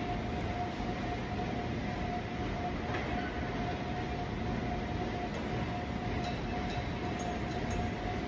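Steady gym room noise: an even rumble with a faint steady whine running through it, and a few faint clicks.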